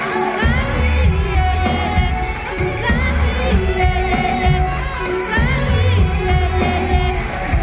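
Live pop music from an arena concert, heard from the audience: a sung melody over a heavy, pulsing bass beat.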